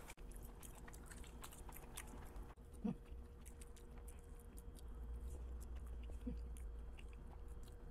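A person chewing soft food quietly, with faint wet mouth clicks scattered throughout and a small soft bump about three seconds in. A faint steady hum runs underneath.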